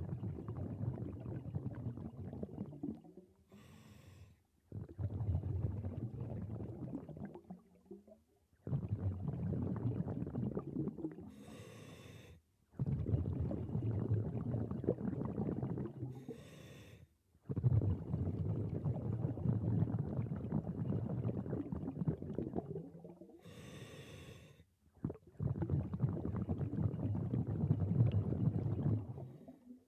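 Scuba diver breathing through a regulator underwater: long rumbling rushes of exhaled bubbles, each several seconds, alternating with short hissing inhalations through the demand valve, about five breaths in all.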